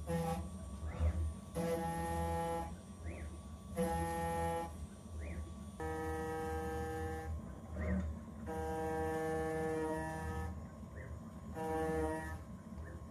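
CNC router spindle driving a 3 mm endmill through 304 stainless steel under flood coolant. The cut gives a pitched tone that comes and goes in stretches of a second or two as the cutter engages, over a steady low hum.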